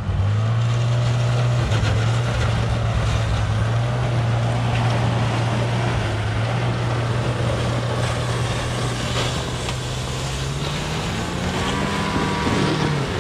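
Two-stroke chainsaw running at high revs with a steady engine note, rising and wavering in pitch near the end.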